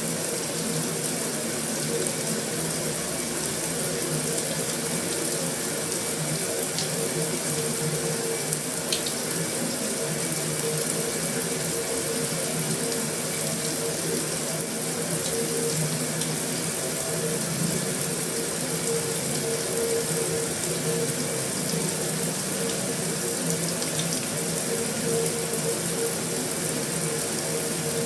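Heavy rain falling steadily on a metal roof, an even, unbroken patter with a few faint ticks.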